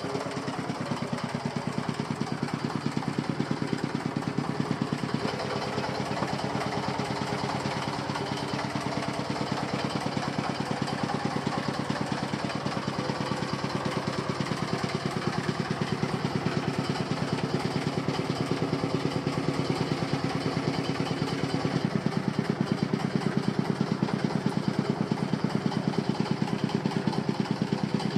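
Small stationary engine driving a fish grinder, running steadily with a fast, even firing beat. Its pitch shifts slightly a few seconds in and again about three quarters of the way through, and it runs a little louder after that.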